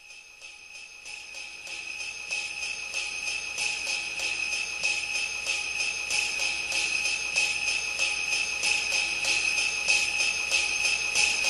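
Opening of a recorded song: a jingling, bell-like percussion pattern on a steady beat, over a sustained high ringing tone. It fades in gradually and grows louder.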